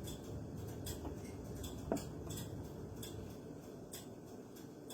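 Faint ticks and small clicks of a kitchen knife against a cutting board while slicing into raw chicken breast, with one soft knock about two seconds in.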